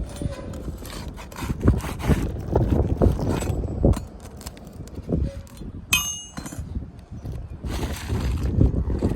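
Asphalt shingles being pried and torn loose from a roof, with scattered scraping and knocking of a pry bar working out nails, and one ringing metallic clink about six seconds in. The shingles are stuck down in tar and tear as they come up.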